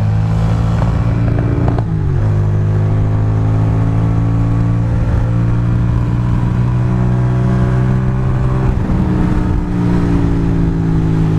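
Ducati Monster's V-twin engine running while riding. Its note drops sharply about two seconds in, then falls slowly, with another change near the end.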